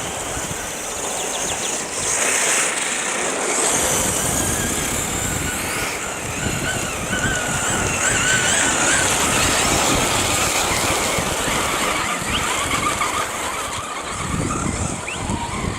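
Brushless electric motors of 1:8 RC cars whining, their pitch rising and falling as they accelerate and slow, over a steady hiss.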